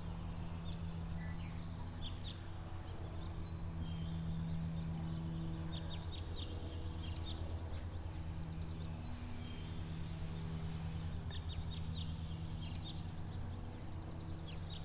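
Outdoor garden ambience: small birds chirping on and off over a steady low hum, with a brief high hiss about nine seconds in that lasts some two seconds.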